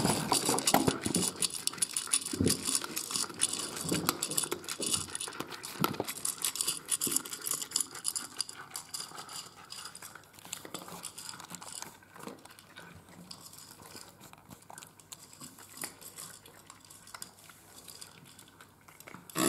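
Cats eating from ceramic bowls: a steady run of small clicks and clinks of food and teeth against the bowls, busy at first and thinning out and growing quieter in the second half.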